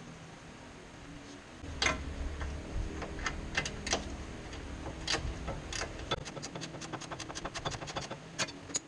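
Hand tools working on a car's suspension bolts: a few scattered metallic knocks and clinks, then from about six seconds in a fast, even run of clicks like a ratchet wrench being cranked.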